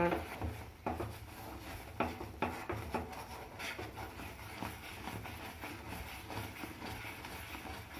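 Spatula scraping and stirring a thick, thickening milk peda mixture around a nonstick frying pan, in irregular strokes with occasional light knocks against the pan, over a low steady hum.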